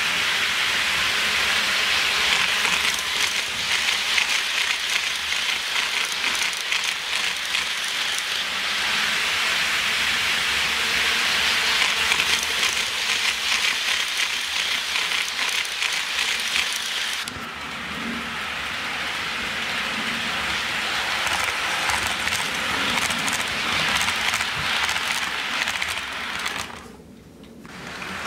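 HO-scale model train running on Kato Unitrack: a steady rolling hiss with rapid clicking as the wheels pass over the track joints. The sound changes abruptly about two-thirds of the way through and dips briefly near the end.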